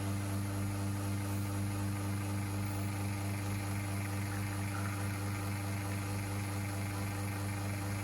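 Espresso machine's pump humming steadily while pulling a shot of espresso.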